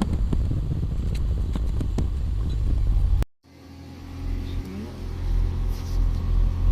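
Car engine running with a low rumble and a few clicks. It cuts off abruptly about three seconds in, then a car engine runs again with a steady, even low hum.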